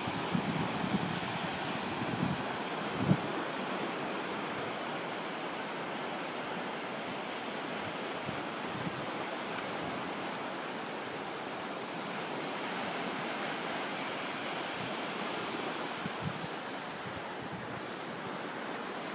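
Ocean surf breaking and washing up the beach in a steady rush, with a few low bumps of wind on the microphone in the first three seconds.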